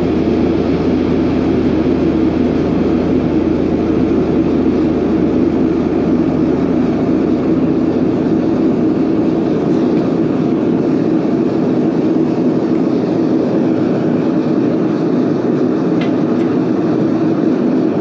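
Microwave oven running with a steady drone while a hard drive burns inside it, with one faint click near the end.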